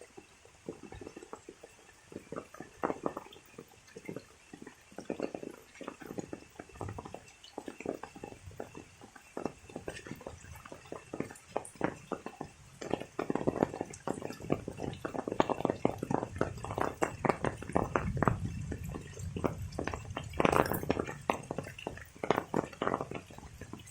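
Rain dripping and splashing in irregular drops, growing denser and louder about halfway through.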